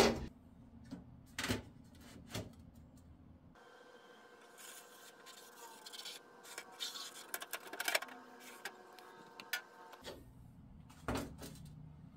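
Sheet-metal handling: faint scrapes and light clicks as a ribbed replacement steel door panel is laid on the door skin and slid into place.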